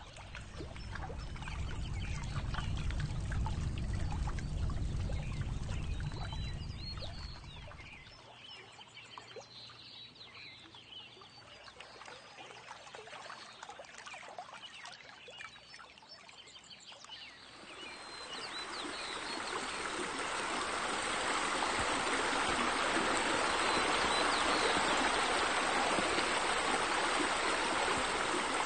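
A low rumble for the first quarter, then birds chirping, then steady pouring, rushing water that swells in about two-thirds of the way through and holds: water spilling from a pool's raised water wall into the pool.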